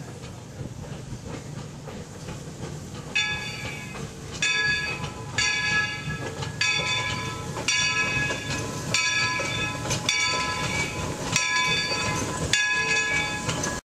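Steam locomotive bell on NCRR 4-4-0 #17 ringing about once a second, starting about three seconds in, over the low running noise of the train rolling slowly in. The sound cuts off suddenly near the end.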